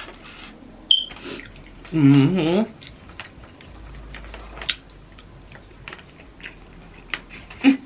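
Close-up eating sounds: chewing and wet mouth noises with a few sharp clicks. A short voiced vocal sound comes about two seconds in.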